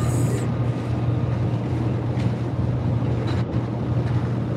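Steady low drone of a car's engine and tyres on the road, heard from inside the moving car, with a brief high hiss at the very start.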